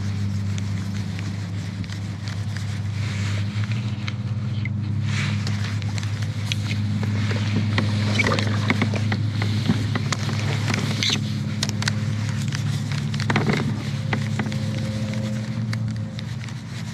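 Wind buffeting the camera microphone as a steady low rumble. Scattered light clicks and taps come from handling the baitcasting rod and reel while working a topwater popper.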